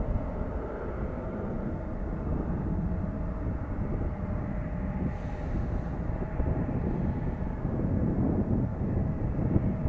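Jet airliner taking off and climbing away: a steady distant engine rumble with a faint steady whine in it.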